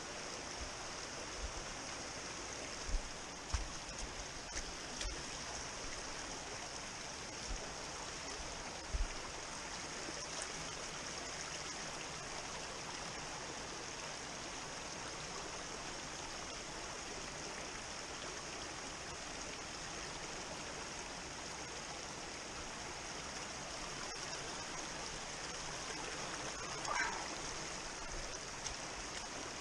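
Small mountain stream rushing and babbling over rocks, a steady hiss of water. A few dull thumps come in the first ten seconds, and a brief higher sound near the end.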